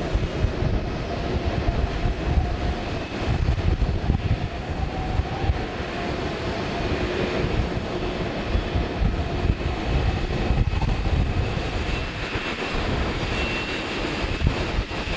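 Boeing 767 jet engines at taxi power, heard from a distance as a steady high whine that grows a little stronger near the end, over a gusty low rumble of wind on the microphone.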